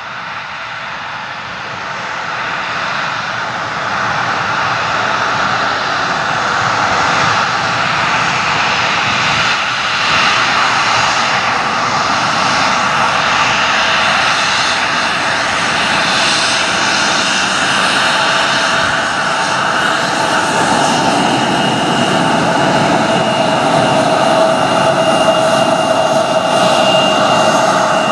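Endeavor Air CRJ regional jet's twin rear-mounted CF34 turbofans running as it taxis past after landing. It is a steady jet roar that grows louder over the first few seconds as the plane comes closer, with a high turbine whine coming through more strongly near the end.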